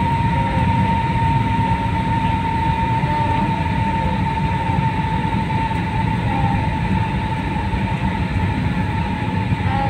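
Steady cabin noise inside an AirAsia jet airliner on approach: a deep rumble of engines and airflow with a thin, steady whine above it.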